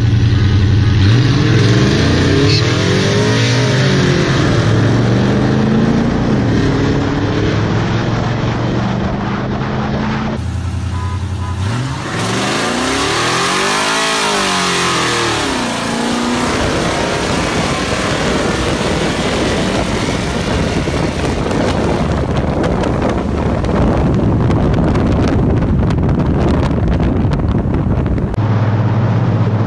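V8 engines of a Dodge Charger R/T and a Chevrolet Silverado with a BTR Stage 4 cam, accelerating hard side by side in a roll race. Their pitch climbs and drops twice. From about halfway the sound turns into a steady rush of wind and engines at speed.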